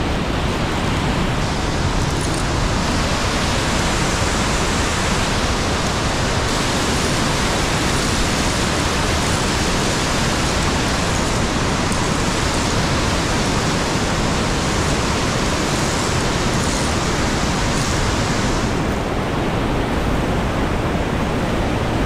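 Mountain waterfall torrent rushing through a rocky gorge close by: a steady, loud wash of white-water noise. Its hiss turns brighter about a second in and duller again near the end.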